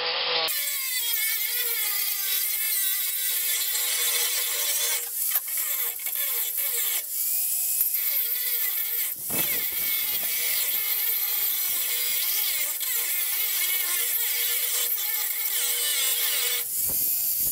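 Angle grinder cutting into the metal cabinet of a vending machine: a steady high whine over a loud grinding hiss. It eases off briefly a few times, about five, seven and nine seconds in and again near the end, then bites back in.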